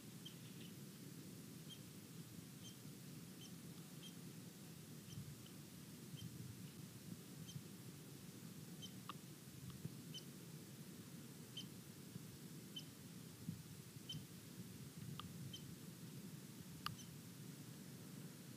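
Faint short, high chip notes from a small bird, about one a second, over a low steady rumble of open-air background noise. A few sharper clicks come in the second half.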